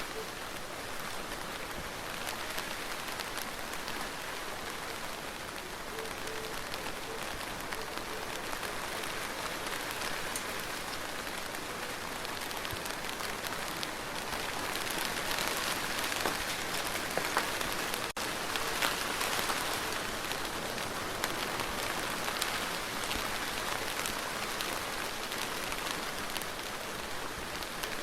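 Steady rain falling, a dense even hiss with many individual drops ticking through it. It grows a little heavier about halfway through and briefly cuts out once, about two-thirds of the way in.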